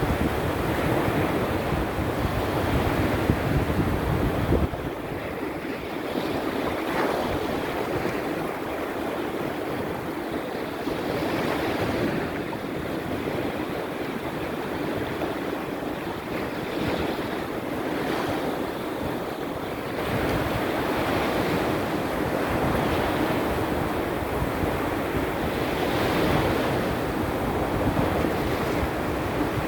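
Baltic Sea surf washing steadily onto the shore in a small storm. Wind buffets the microphone with a low rumble for the first few seconds, drops away, then comes back about two-thirds of the way through.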